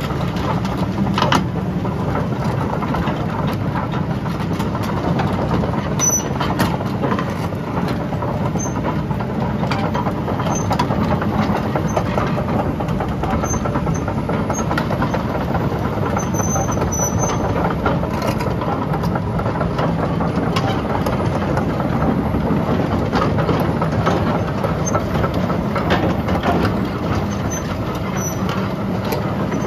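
Sany SY265C LC excavator's Cummins QSB6.7 six-cylinder diesel engine running steadily, a constant low hum.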